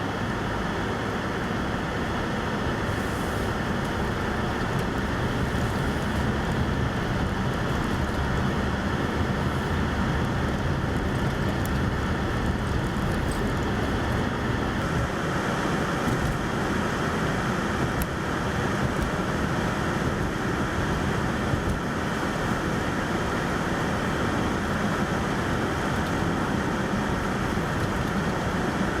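Steady rumble of vehicle and road traffic noise, with wind blowing.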